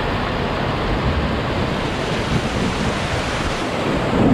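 Steady rushing noise of wind buffeting the microphone, with uneven low rumbles.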